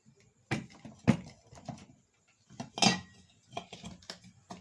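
Metal parts of a ceiling fan knocking and clinking as they are handled during reassembly, about six sharp knocks, the loudest about three seconds in, while the fan's upper cover is fitted onto the body.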